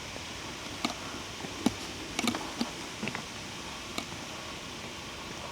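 A handful of short, sharp clicks and ticks at irregular intervals, a small cluster just past two seconds in, over a steady background hiss.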